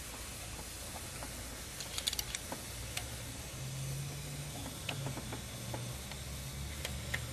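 Light metallic clicks and taps of a box-end wrench and screwdriver working the valve-lash adjuster locknut on a 1996 Honda Civic's rocker arm: a small cluster about two seconds in, then a few single ticks, over a steady low hum.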